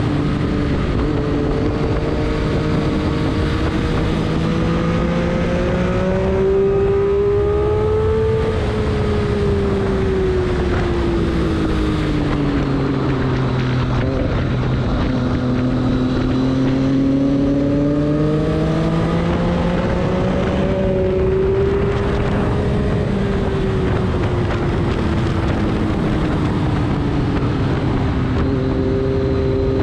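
A vehicle engine running continuously on a race track, its pitch sinking and climbing smoothly over several seconds at a time as it slows and accelerates.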